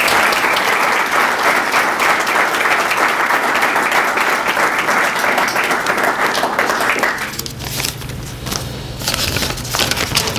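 Audience applauding, a dense patter of many hands, dying away about seven seconds in. A steady low hum and a few scattered rustles remain.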